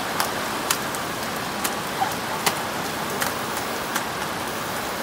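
Steady rain falling, with single drops ticking sharply on a hard surface, irregularly, about twice a second.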